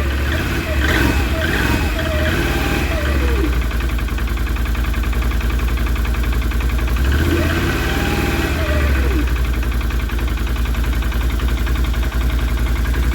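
Can-Am Renegade 650's Rotax V-twin engine running cold with a rapid, steady knock from piston slap: the piston rocking against the cylinder wall while the cold clearance is still wide, a slap that fades as the engine warms. Engine speed rises and falls briefly about seven seconds in.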